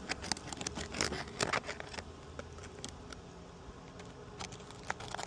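Asphalt roof shingle seals being pried apart with a seal breaker: scattered crackles, clicks and short scrapes, thinning out after about two seconds, with a few more near the end.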